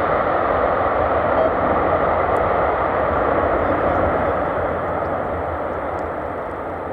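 Jet engine noise from a Boeing 747-400F freighter just after landing: a steady, loud rushing roar that slowly fades over the last few seconds.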